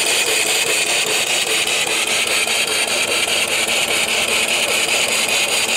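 Homemade single-cylinder horizontal mill (box bed) steam engine running steadily under steam, its exhaust pipe puffing fast, even beats with a hiss of escaping steam.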